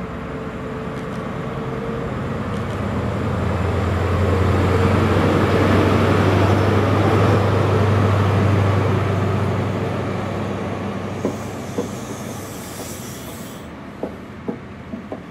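Class 43 HST power car accelerating past at close range, its diesel engine note building to a peak about halfway through, then fading. The Mk3 coaches follow, their wheels clicking over rail joints near the end, with a brief hiss.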